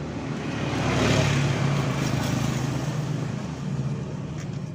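A vehicle engine running steadily; it swells louder about a second in, then slowly eases off.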